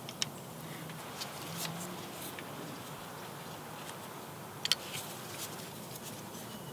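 Light scattered clicks and metallic taps as new glow plugs are handled and threaded by hand into a diesel engine's cylinder head, over a low steady hiss. A sharper click comes a little before five seconds in.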